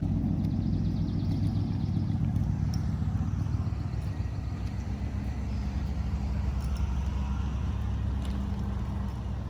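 Steady low rumble of wind buffeting the microphone while riding along, with faint rapid ticking in the first couple of seconds.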